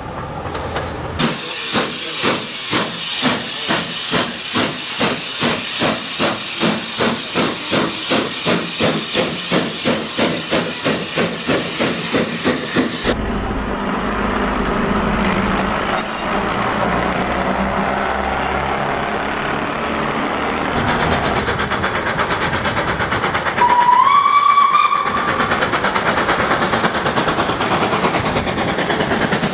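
Model steam locomotive chuffing in an even beat of about three chuffs a second, cutting off suddenly about 13 seconds in. A steady running noise of the model train follows, with a short whistle that slides up in pitch and holds about 24 seconds in.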